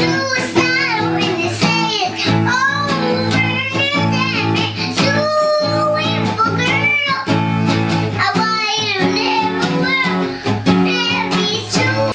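A child singing a melody over guitar accompaniment.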